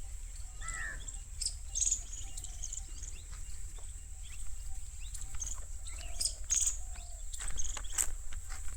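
Insects chirring in a steady, high-pitched drone, with a few short bird chirps and scattered light clicks and taps over a low rumble.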